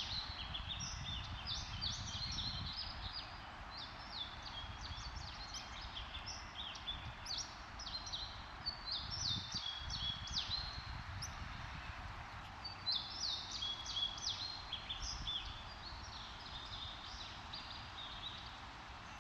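Downy woodpeckers calling while fighting: flurries of short, sharp, high-pitched notes in quick runs, thinning out near the end, over a low background rumble.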